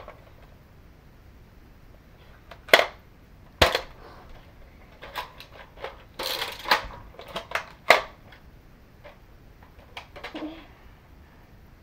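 Toy Nerf foam-dart blaster being worked: a handful of sharp plastic clicks and clacks at irregular spacing, with a cluster about six to eight seconds in.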